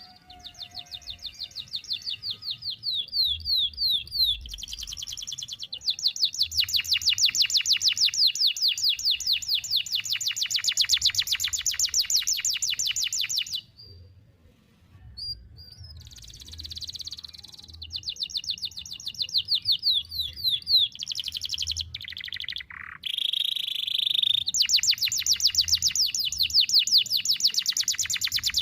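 Canary singing long, fast trills of sharp, repeated high notes, each run held for several seconds, with a short break about halfway through.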